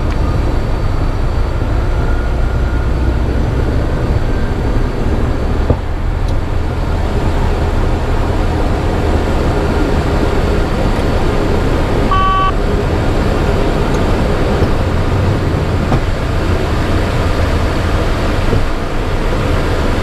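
Cockpit noise of a Cessna Citation Bravo's twin turbofan engines at takeoff power, steady through lift-off and the initial climb. A brief knock comes about six seconds in, and a short electronic chime about twelve seconds in.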